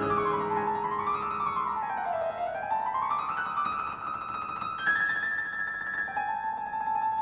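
Piano music: quick runs of notes sweeping down and up, settling into held notes in the second half.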